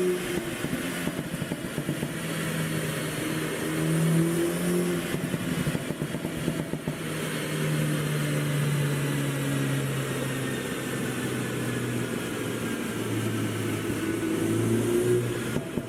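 BMW G20 330i's 2.0-litre turbocharged four-cylinder engine revving up and down repeatedly, its exhaust crackling and popping from an ECU tune that makes the exhaust pop.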